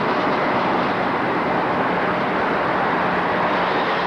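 Southern Pacific freight train rolling out of a tunnel, its cars passing at a steady pace with a constant, even rumble and rush of wheels on rail.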